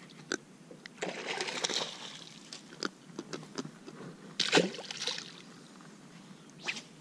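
Water splashing, in a burst about a second in and a louder one about four and a half seconds in, with scattered sharp clicks and knocks in between.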